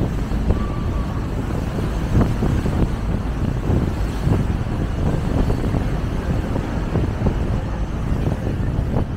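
River tourist boat under way: its engine runs steadily, and wind buffets the microphone in frequent short gusts.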